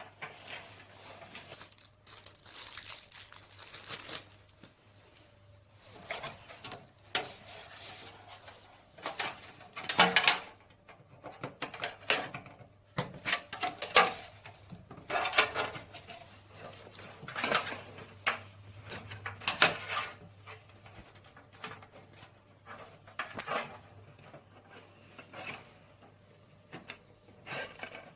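Hands handling computer hardware and plastic packaging: irregular rustling, crinkling and light clicks and knocks, over a faint steady low hum.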